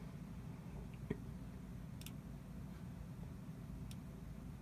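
A few faint clicks from operating the computer and controller, with one sharper tap about a second in, over a steady low hum of room noise.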